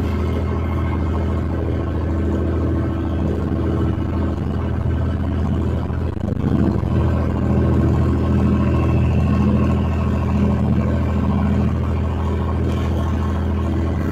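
Class 66 diesel locomotive's two-stroke V12 EMD engine running under power, a steady low drone heard from the cab, getting a little louder about six and a half seconds in.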